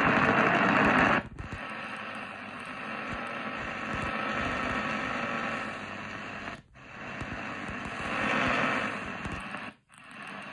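Medium-wave AM reception from an Eton Field BT Grundig Edition portable radio's speaker as it is tuned up the band in steps. A strong station cuts off about a second in, followed by weaker, hissy signals with static. The audio briefly drops out twice more as the radio retunes to the next frequency.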